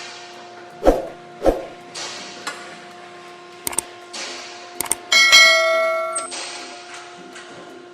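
Metal tools and engine parts knocking and clinking together: two sharp knocks, a few light clinks, then one loud ringing clang a little over five seconds in that rings for about a second.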